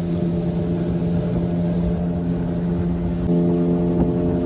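Speedboat engine running at a steady pitch, with a rushing noise beneath it; it grows a little louder about three seconds in.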